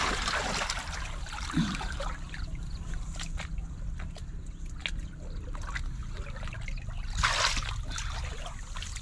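Muddy water sloshing and trickling as hands grope through shallow pond water, with scattered small splashes and a louder splash about seven seconds in.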